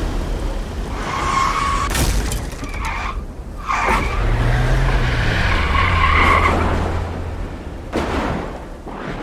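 Car tyres skidding and squealing with an engine drone, a sound effect from a music video's closing scene.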